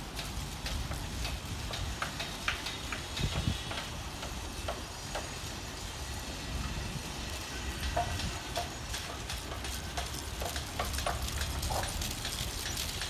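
Irregular clicks and thuds of several runners' spring-loaded bionic boots striking artificial turf, over a steady low rumble.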